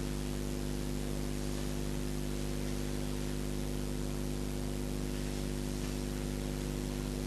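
Steady background hum with an even hiss, unchanging throughout, with no distinct handling or scraping sounds.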